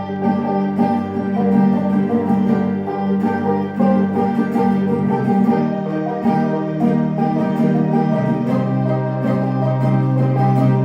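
Banjo and mandolin playing a fast instrumental tune live, with long held low notes underneath.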